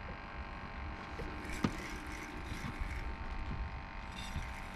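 Steady low rumble of wind on the microphone aboard an open fishing boat, with a single sharp knock about one and a half seconds in and short bursts of hiss in the middle and near the end.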